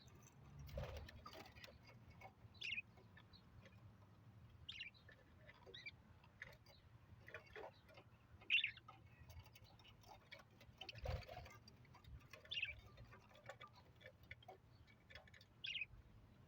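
Budgerigars giving short, faint chirps every second or two, with scattered small clicks and a couple of soft knocks.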